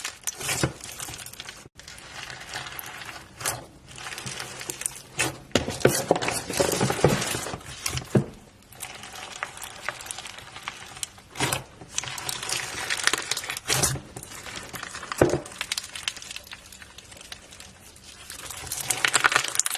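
Fluffy shaving-cream slime being squeezed and stretched by hand, crackling and squishing with many sharp little pops that come in irregular spurts.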